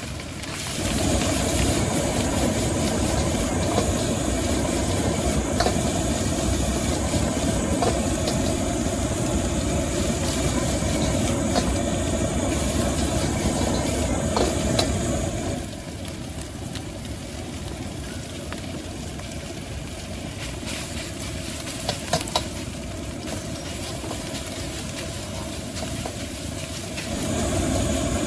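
Gas wok burner at a street-food stall running with a steady rumble and hiss during stir-frying. It drops to a lower level a little past halfway and comes back up near the end, with a few sharp knocks about three quarters of the way through.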